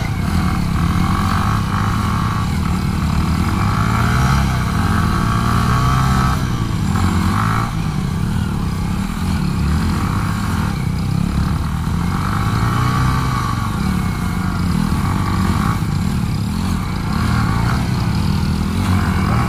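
Two small single-cylinder motorcycles, a Yamaha R15 V3 and a Hero Splendor Plus, held at high revs under load as they pull against each other on a tow rope, the engine notes rising and falling with the throttle. The R15's rear tyre spins in the dirt as it fights for grip.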